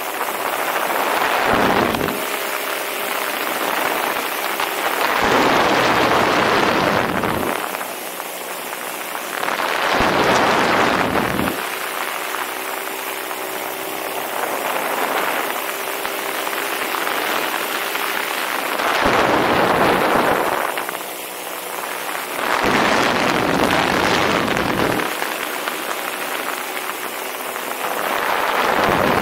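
Paramotor's Vittorazi Moster 185 single-cylinder two-stroke engine and propeller running at a steady cruise in flight, with wind rushing over the microphone that swells loudly every few seconds and partly drowns the engine.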